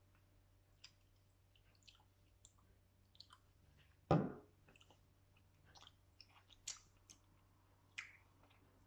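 Faint, scattered clicks and taps of small objects being handled at close range, with one louder knock about four seconds in.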